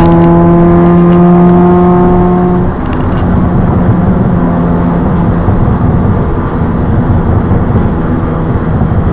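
Nissan Almera GTi's engine and new aftermarket exhaust droning at motorway speed, the note climbing slightly at first. About three seconds in the level dips briefly, then the drone carries on steadily under heavy road rumble.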